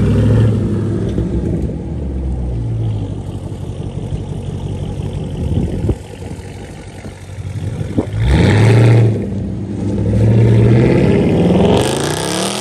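Jeep Grand Cherokee Trackhawk's supercharged 6.2-litre V8 rumbling through its quad exhaust, blipped in several sharp revs, the loudest about eight seconds in. Near the end it accelerates hard as it pulls away, its pitch climbing.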